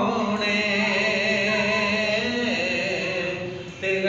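Devotional song: a singer holding long wavering notes over a steady drone, the voice dipping briefly near the end.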